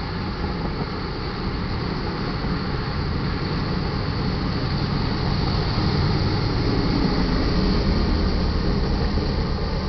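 Loaded crude oil freight train passing close by: a steady rumble and rattle of the rolling cars on the rails, swelling to its loudest about two-thirds of the way through, then easing slightly.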